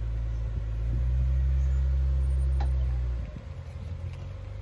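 Off-road vehicle's engine running with a deep, steady rumble. It grows louder about a second in, holds for about two seconds, then eases back. A single short click is heard near the middle.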